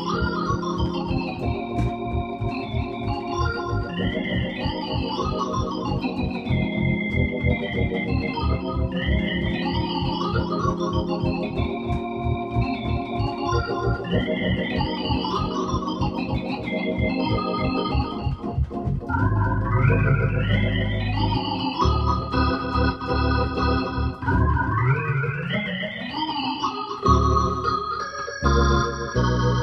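Nord C1 organ on Hammond tonewheel sounds, played through a Leslie speaker: fast arpeggiated runs that climb and fall about every two seconds over a quick pulsing bass line, echoed by the organ's delay effect in the manner of a tape delay. About two-thirds of the way through a low bass note is held loudly, and near the end the runs sweep upward.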